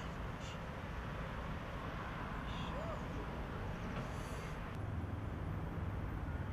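Outdoor background noise: a steady hiss over a low rumble that grows a little stronger about five seconds in, with a few faint short high sounds.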